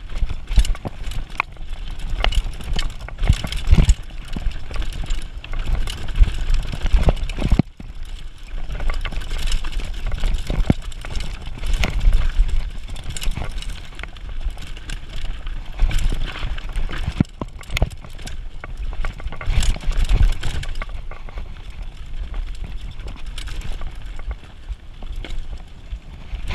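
Mountain bike ridden fast down a dirt forest trail: tyres rumbling over dirt and roots, with frequent sharp knocks and rattles from the bike over bumps. The knocks come thickest early on and again in the middle stretch.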